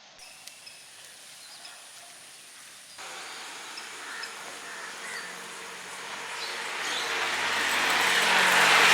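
A motor vehicle approaching, its engine and road noise growing steadily louder over the last few seconds and loudest at the very end.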